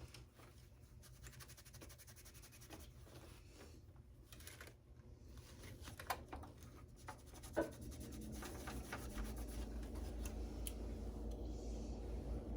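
Light scratching and small clicks of a computer part being handled by hand, with one sharper click about seven and a half seconds in. A low steady hum comes in about nine seconds in.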